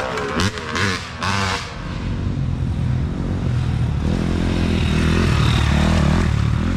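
Dirt bike engines: one bike revving and shifting as it passes close, then pulling away in the first second or two, then another bike approaching with a steady engine note, growing louder and passing close near the end.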